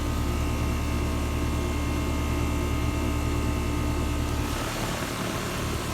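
Bryant central air conditioner outdoor unit running, a steady low hum of compressor and condenser fan with a few held tones. The low hum drops away about four and a half seconds in.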